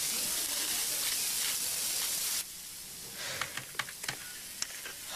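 Water gushing from a commercial stainless-steel sink faucet, a steady hiss that cuts off sharply after about two and a half seconds. Then a few scattered clicks of typing on a computer keyboard.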